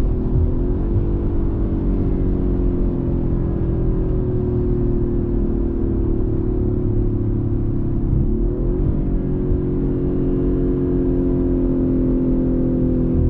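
Audi RS4 Avant engine running at fairly steady revs, its pitch shifting briefly about a second in and again just past the middle.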